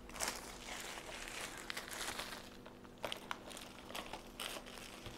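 Clear plastic bag crinkling as tomatoes are taken out of it and set down on a table, with a few light taps.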